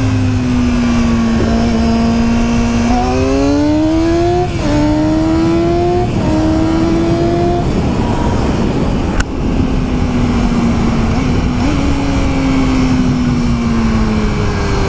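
Yamaha R6 sport bike's 600 cc inline-four engine pulling hard through the gears, its pitch climbing with short breaks at two upshifts about four and a half and six seconds in. It then rolls off, cruises and winds down, with brief throttle blips, over steady wind rush on the helmet microphone.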